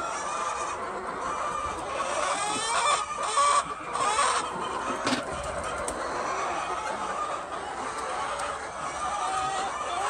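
A flock of white laying hens clucking continuously, their calls overlapping. The clucking grows louder for a moment about three to four seconds in, and there is a single sharp knock about five seconds in.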